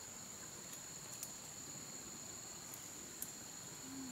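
Forest insects droning steadily in two high, unbroken tones, with a few light ticks, the sharpest about three seconds in.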